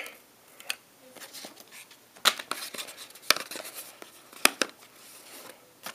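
Hands handling a phone's box packaging: scattered light clicks and taps with soft rustling, three sharper clicks spread through the middle.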